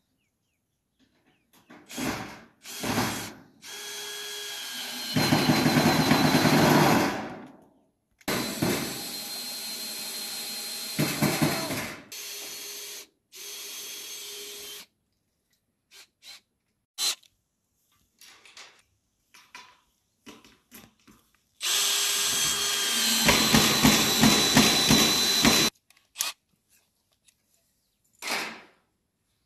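Cordless drill driving screws through corrugated metal roofing sheets into wood, in four runs of a few seconds each with short clicks and knocks between. Twice the whine jumps louder partway through a run.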